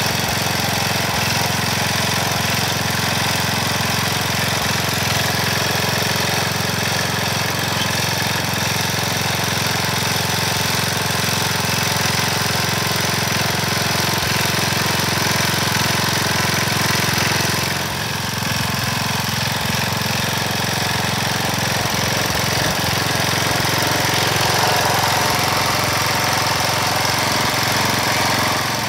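Front-tine garden tiller's small gas engine running steadily as its tines churn through dry soil, the sound dipping briefly about two-thirds of the way through.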